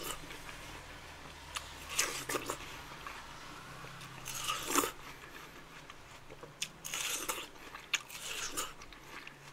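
Biting into and chewing a slice of watermelon close to the microphone: a handful of short, crisp, wet crunches, about two, four and a half, and seven seconds in.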